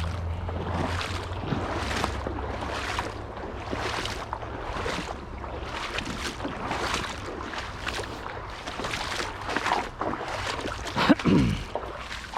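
Legs wading through shallow creek water, sloshing in a steady rhythm of about two strides a second. A single louder sound comes about eleven seconds in.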